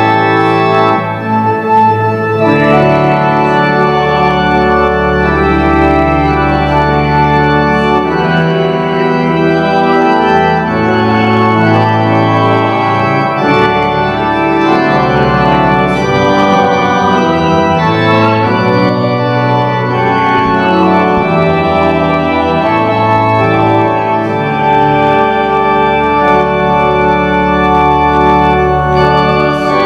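Church organ playing a slow recessional as the casket is taken out: sustained chords over a deep bass line, the chords changing every few seconds.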